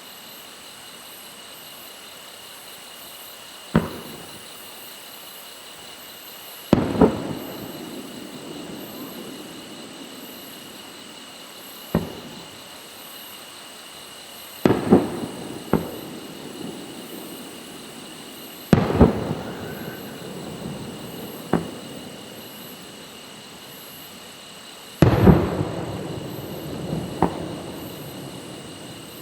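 Aerial fireworks bursting: sudden booms at uneven intervals, some in quick pairs, each followed by a rumbling tail that dies away over a second or two.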